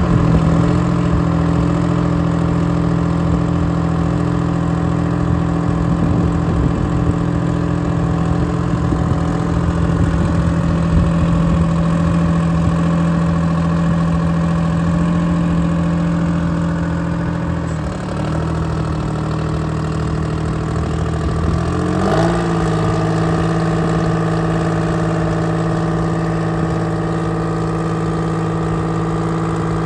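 Engine of a 1979 Ford F600 Mobile Drill rig idling steadily. Its note dips briefly about 18 seconds in, then settles at a slightly different steady pitch from about 22 seconds in.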